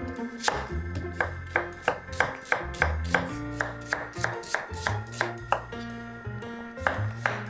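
Background music with a steady bass line, over a chef's knife slicing onion and zucchini on a wooden cutting board, knocking on the board about three times a second.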